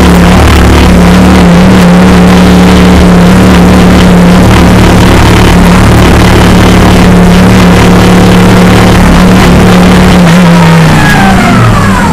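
Audi R8 LMS GT3 race car's 5.2-litre V10 running loud and steady in first gear at a constant pit-lane speed, heard from inside the cockpit. About eleven seconds in, the pitch falls as the car slows to a stop.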